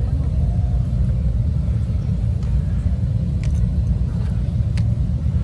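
Steady low rumble of wind buffeting the microphone of a camera riding on a slowly rolling bicycle, with a few faint clicks.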